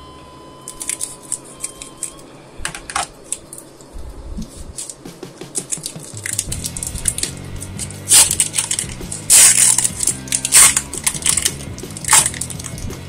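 Scissors snipping across the top of a foil Pokémon booster pack in a string of short clicks. Later, the foil wrapper crinkles loudly in several bursts as it is pulled open.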